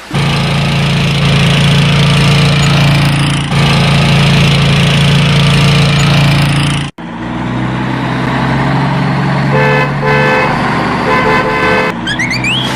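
A steady low vehicle engine drone that cuts out and restarts a couple of times, with short repeated horn toots late on, like toy-vehicle or cartoon vehicle sound effects.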